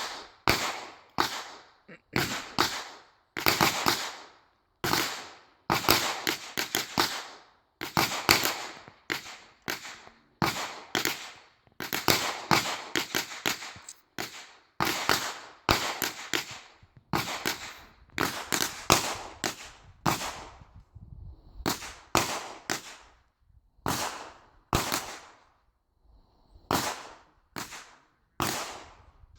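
Gunfire: dozens of sharp shots in quick, irregular succession, sometimes several within a second, each with a short ringing tail, thinning out to fewer, more widely spaced shots over the last third.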